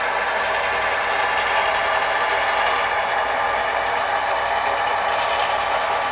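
Sound-equipped HO-scale model diesel locomotive running slowly, its sound decoder playing a steady diesel engine sound.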